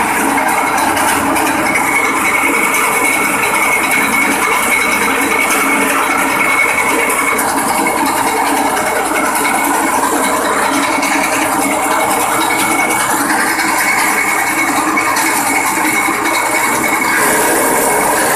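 Engine-driven grass chopper running steadily, with a high whine that comes and goes, as its cutter chops grass stalks fed into the hopper.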